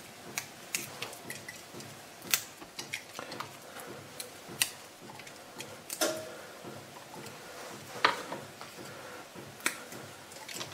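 Irregular small clicks and ticks of fresh rosemary being stripped from its stems by hand, the needles and stem bits dropping and tapping into the plastic bowl of a mini food processor, with a few sharper clicks among them.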